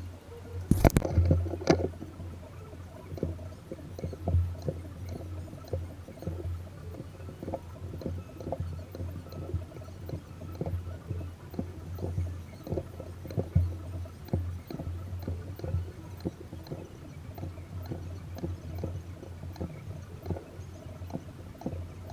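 Irregular light clicks and knocks over a steady low hum, with one sharper crack about a second in.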